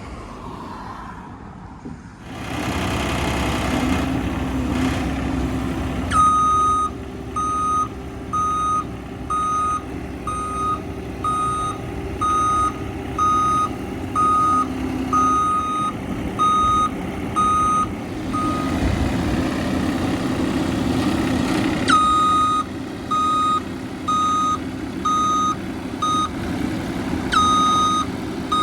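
A skid steer's engine runs, coming up loud about two seconds in, with its reversing alarm beeping about once a second as it backs up. The beeping stops for a few seconds and then starts again.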